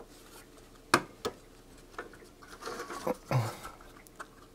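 Clicks and scraping of a Simpson 461-2 digital multimeter's circuit board and case parts being fitted back together by hand: a sharp click about a second in, a second click shortly after, then rubbing and scraping.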